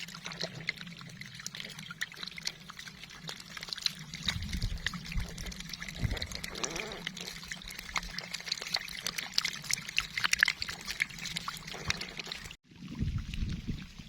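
Shallow field water splashing and trickling, with irregular sharp splashes and a few heavier low sloshes partway through. The sound cuts out for an instant near the end.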